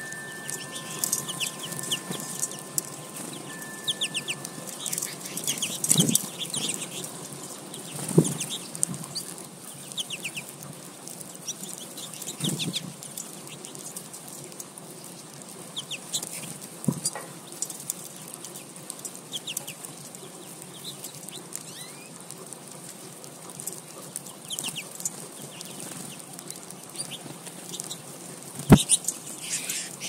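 American goldfinches twittering and calling at a seed feeder, many short quick chirps scattered throughout, with a few soft thumps and one sharper knock near the end.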